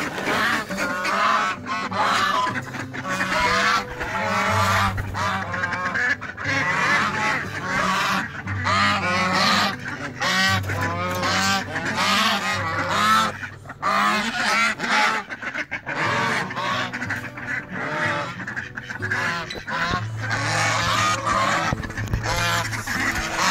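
Flock of domestic ducks calling loudly, a dense run of overlapping quacks with hardly a break.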